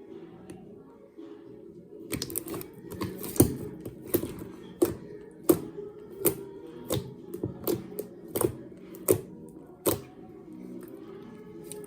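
Slime being worked by hand, giving a run of sharp popping clicks, about one to two a second, from about two seconds in until near the end. Soft background music plays throughout.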